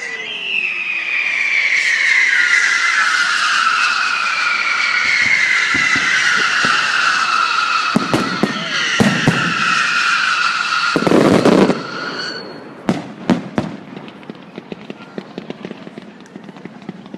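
Fireworks going off: several shrill whistles sliding slowly down in pitch, bangs about halfway through and a longer loud blast about two-thirds of the way in, then a quick run of sharp cracks and a spray of fainter crackling.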